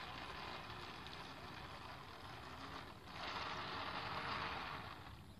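Radio-controlled model boat running under power on calm water, heard as a steady hiss that grows louder about three seconds in.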